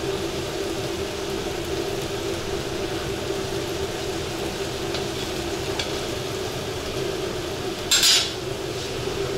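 Rice for plov cooking in water and oil in a large kazan, a steady sizzle, while a metal skimmer stirs it. About eight seconds in, there is a short sharp scrape of the skimmer against the pot.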